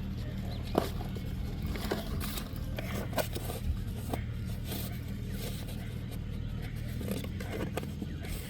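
A steady low motor hum with irregular scraping and clicking handling noises over it.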